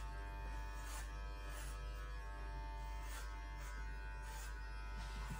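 Electric hair clippers buzzing steadily, with a brief hiss about twice a second as the blades pass through the hair at the back of the neck.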